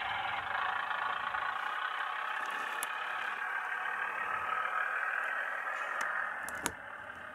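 Diesel multiple unit engine sound from a DCC sound decoder in an OO gauge Bachmann Class 105 DMU model, played through the model's small onboard speaker as it runs along the track. The sound is steady, then drops in level about six and a half seconds in, with one sharp click at the drop.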